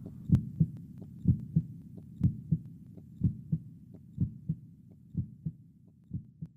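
Heartbeat: low paired lub-dub thumps about once a second, seven beats that fade steadily and stop near the end.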